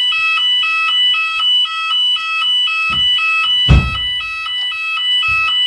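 Shop fire alarm sounder giving a loud two-tone alert between evacuation messages, switching between a higher and a lower pitch about twice a second. A few low thuds sound under it, the loudest just under four seconds in.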